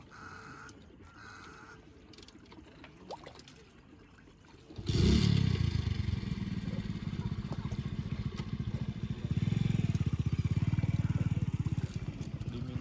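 A small engine starts up suddenly about five seconds in and runs with a rapid, even beat, getting louder for a couple of seconds near the end before easing back.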